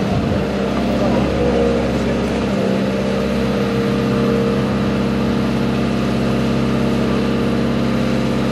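Crane engine idling steadily while the lifting slings are rigged around a yacht's hull, ready for the lift.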